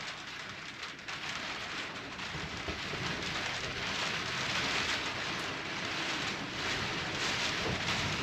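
Steady rain falling outside, an even hiss.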